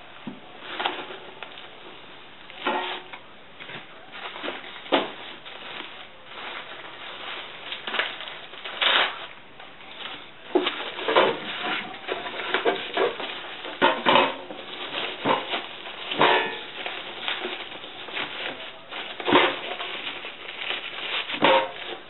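Plastic bubble wrap crinkling and rustling as it is handled around a boxed inverter, with irregular sharp crackles every second or so.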